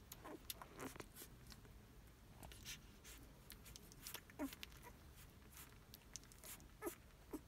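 Newborn puppies nursing: faint wet suckling and smacking clicks, with a few short high squeaks from the pups.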